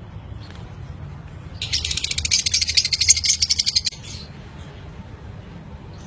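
Caged budgerigars and lovebirds chattering: a dense, high, rapid chirping that starts about one and a half seconds in and stops about two seconds later.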